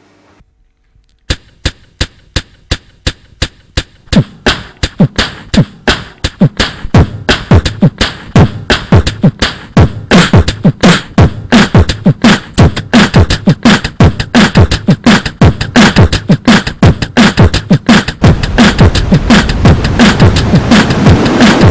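Beatboxing into a microphone, built up in loops on a sampler. About a second in, a steady beat of clicks starts at about two a second; deep kick-drum thumps and more layers join, and near the end a dense hissing layer thickens the mix.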